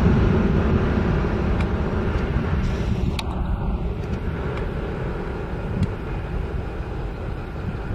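Airbus A320's twin IAE V2500 turbofans running at takeoff power as the jet climbs away: a broad low rumble that fades steadily as it recedes.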